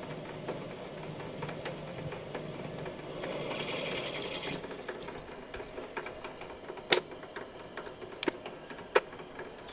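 Drilling machine with its bit cutting into a workpiece clamped in a vise: a steady mechanical hiss with a high whine, which falls away about four and a half seconds in, followed by a few scattered sharp clicks.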